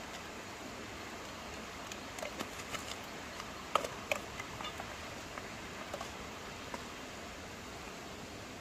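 Steady rush of a stream, with a string of light clicks and taps from about two to seven seconds in, the loudest near four seconds.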